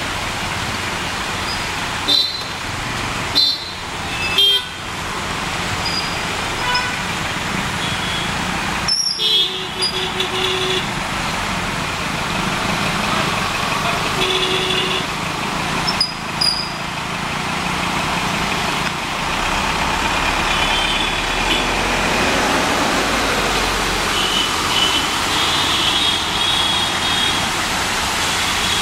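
Slow traffic on a waterlogged city road: a steady wash of engines and tyres through standing water, with short horn toots several times.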